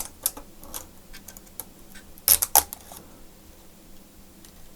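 Light clicks and taps of small tools working on a laptop motherboard, with two sharper clicks close together a little past two seconds in.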